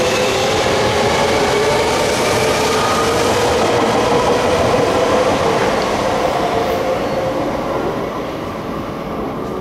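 Renewed Tokyo Metro 05 series subway train with a Toshiba PMSM VVVF inverter running through the platform. Its inverter and motors give several steady tones over the rumble of the wheels, and the sound eases off near the end.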